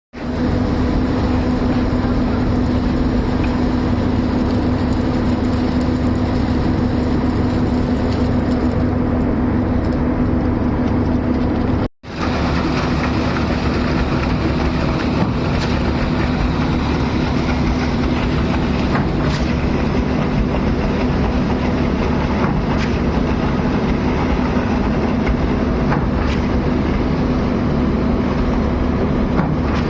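A large engine of concrete-pouring machinery running steadily at a constant speed, with a steady hum. The sound cuts out for a moment about twelve seconds in.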